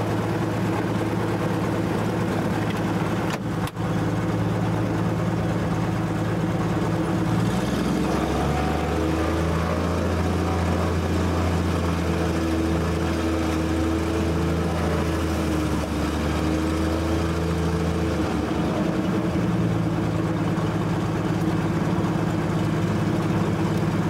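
Pitts biplane's piston engine and propeller running at low power on the ground, heard from the open cockpit. A deeper, wavering engine note joins it from about seven seconds in until about nineteen seconds, and the sound cuts out very briefly about three and a half seconds in.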